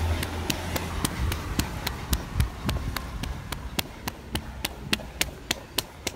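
Hurried footsteps in flip-flops slapping on a wet concrete footpath: an even run of sharp slaps, about four a second.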